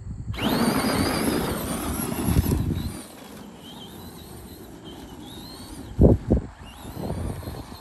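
Traxxas Bigfoot No. 1 RC monster truck pulling away hard on gravel: its electric motor's high whine rises quickly over the hiss of tyres spraying gravel. It then settles to a fainter whine that wavers in pitch as the truck runs farther off, with two short thumps about six seconds in.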